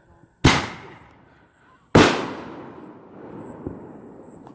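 Two loud firework bangs about a second and a half apart, each trailing off in a long fading echo, followed by a smaller pop.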